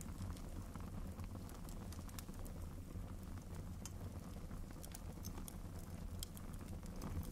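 Wood fire crackling faintly in a fireplace: scattered small pops and snaps over a low steady hum.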